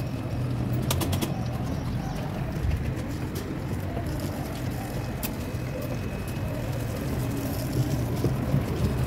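Steady low outdoor rumble with a few light clicks scattered through it.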